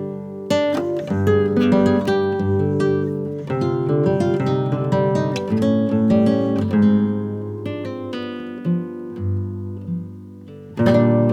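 Background music on acoustic guitar: plucked notes and strummed chords, with a loud chord struck near the end.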